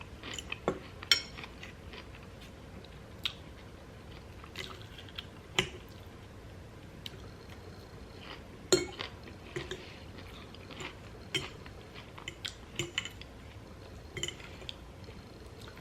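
Eating sounds: scattered short clicks of cutlery against a dish, mixed with chewing and biting.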